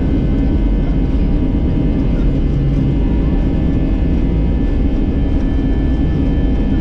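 Airbus A320-200 jet engines at takeoff thrust heard from inside the cabin during the takeoff roll: a loud, steady roar with steady whining tones above it.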